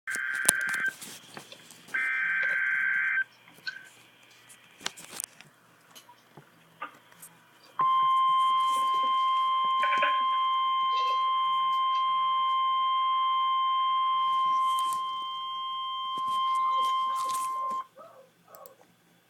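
Emergency Alert System broadcast: two short screeching bursts of the digital SAME header data, then after a pause the National Weather Service's steady single-pitch 1050 Hz warning alarm tone, held for about ten seconds and cutting off sharply. It is the signal that a severe thunderstorm warning message follows.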